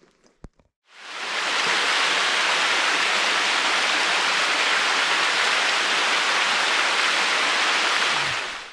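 Steady rushing noise of running water, fading in about a second in and fading out near the end.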